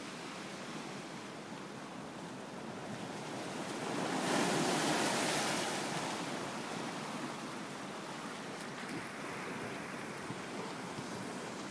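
Sea waves washing on the shore, one wave swelling to its loudest about four to six seconds in and then easing off.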